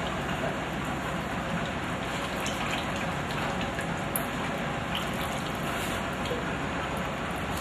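A thin stream of liquid from an olive press pouring out of a pipe into a plastic bucket and a tiled basin, splashing steadily.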